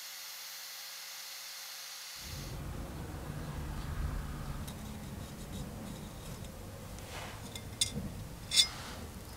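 Small brass lure blade held against a spinning sanding disc: a steady grinding hiss for about the first two seconds, cutting off suddenly. Then quiet handling of the brass piece, with two sharp metallic clicks near the end, the second the loudest.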